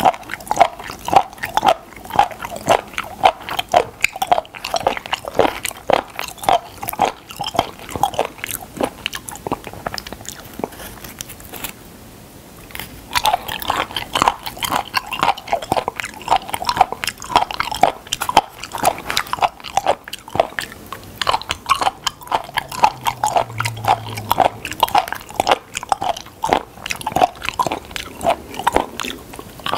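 Close-miked chewing of raw spoon worm (gaebul) slices: wet, crunchy chewing clicks at about three a second, broken by a pause of about two seconds partway through.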